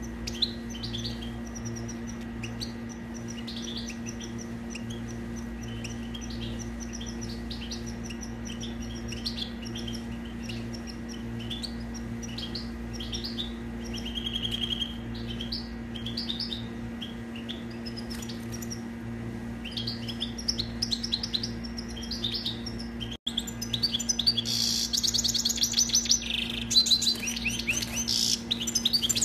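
European goldfinch singing: quick twittering chirps and trills with short pauses, over a steady low hum. Just past two-thirds of the way in, the sound cuts out for a moment and the song comes back louder and denser.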